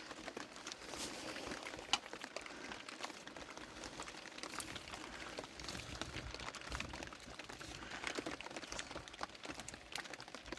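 Faint, irregular small clicks and rustles over a low, steady hiss.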